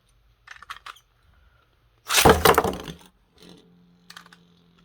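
Beyblade Metal Fusion tops launched into a plastic stadium. A few sharp clicks come first, then a loud clatter about two seconds in as the ripcord launch sends the tops into the bowl. A faint steady hum of the spinning tops follows, with a few clicks as they knock together.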